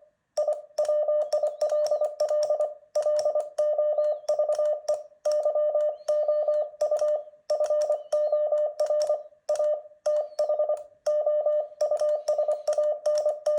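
Morse code sent as a steady mid-pitched beep, keyed on and off in quick dots and dashes with short gaps between letters and words. It spells out song lyrics letter by letter. Each element starts and stops with a sharp click.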